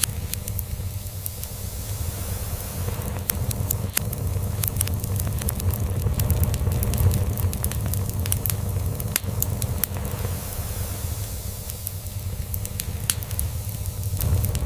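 Wood fire crackling, with scattered sharp pops, over a continuous low fluttering rumble of a cat purring.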